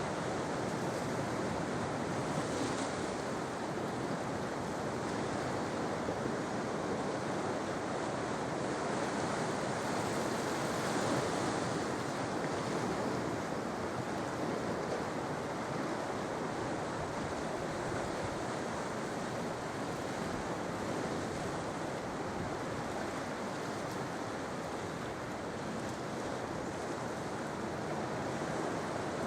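Sea waves breaking and washing onto the shore: a steady rush of surf that swells a little about two and eleven seconds in.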